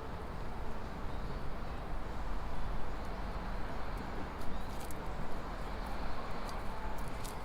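Steady low hum of distant city traffic, with a handful of light sharp clicks in the second half.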